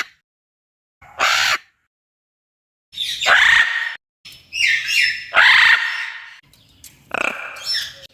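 Parrot squawks: one harsh screech about a second in, then after a pause a quick run of loud, rasping screeches and squawks.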